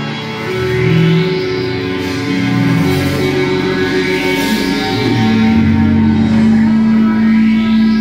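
Live rock band playing: electric guitars holding long, sustained notes over drums, with cymbal washes swelling and fading every few seconds.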